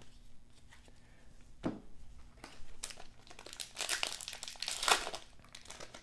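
Plastic wrapper of a 1991-92 Skybox basketball card pack being torn open and crinkled, a run of crackling from about two and a half seconds in until near the end, after a single thump about a second and a half in.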